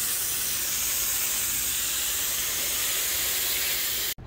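Steady hiss of a hand-held hose spray wand jetting water onto a car's radiator and the pavement below. It cuts off suddenly near the end.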